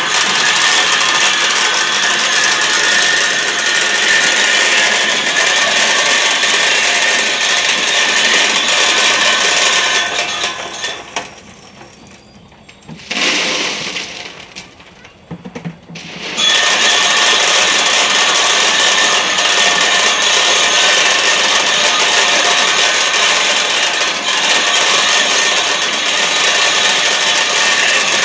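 Candlenut-cracking machine running loudly and steadily, with a fast dense rattle as nuts are cracked inside. About ten seconds in it drops away for several seconds, with one short burst, then picks up again at full loudness.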